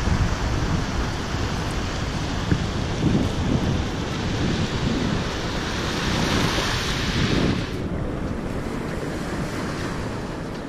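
Small waves breaking and washing up a shell-covered beach, with wind buffeting the microphone in a low, gusty rumble. The hiss of the surf drops away about eight seconds in.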